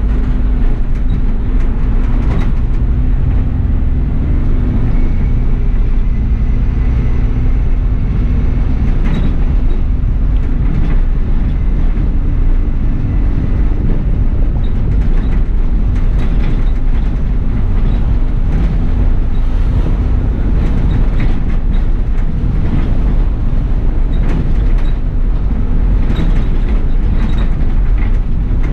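Bus on the move, heard from the driver's seat inside: a steady low engine and road rumble with scattered light rattles and clicks from the body.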